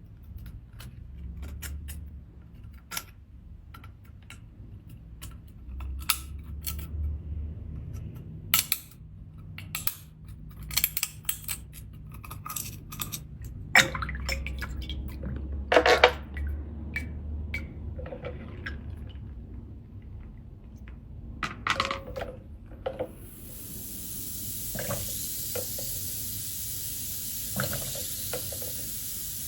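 Seashells being handled, clinking and knocking against one another and a hard surface in quick, irregular clicks. About 23 seconds in, a steady high hiss begins and holds.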